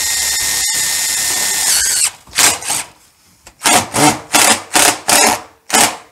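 Yellow-and-black DeWalt cordless impact driver driving a roofing screw through a galvanized metal ridge cap into corrugated steel roofing: one steady run of about three seconds, then a string of short trigger bursts as the screw is seated.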